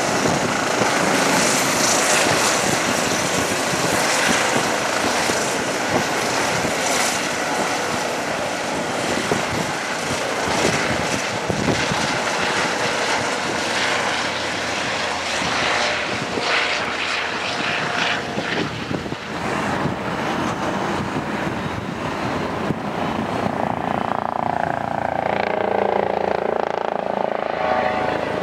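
Eurocopter EC135 twin-turbine helicopter climbing away after takeoff: steady rotor and turbine noise. The high end of the sound dulls after the midpoint as it draws off, and a humming tone comes in near the end.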